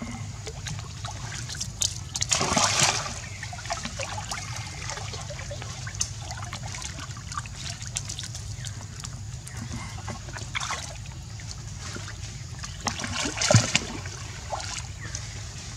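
Water splashing and sloshing as macaques swim in a pool, with small splashes throughout. Two louder splashes come about two and a half seconds in and again near the end.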